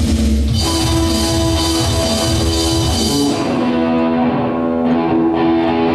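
A short burst of rock music with electric guitar and drums. The drums drop out about three seconds in, leaving the guitar chords ringing.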